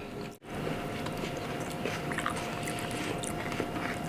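People chewing food close to the microphone, with small wet mouth clicks and smacks, over a faint steady hum.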